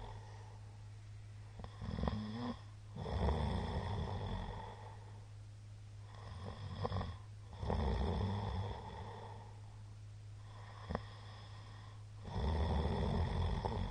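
A middle-aged man snoring loudly in his sleep: three snoring breaths about five seconds apart, each in two parts with quieter pauses between. A single short click comes about eleven seconds in.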